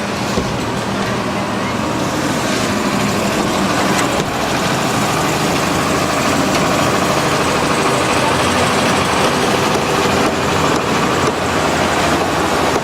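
Loud, steady mechanical din of a running engine, with a few brief knocks.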